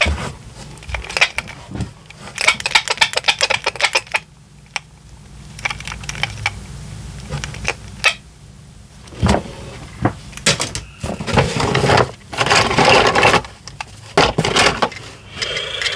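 Small plastic toys clicking and rattling against each other and the cardboard as they are handled and rummaged through in a cardboard box. The clatter comes in irregular bunches, with a quiet spell about four seconds in.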